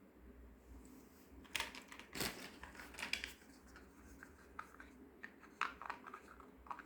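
Irregular clicks, taps and short scrapes of small plastic toy pieces and packaging being handled, starting about a second and a half in and coming in scattered bursts.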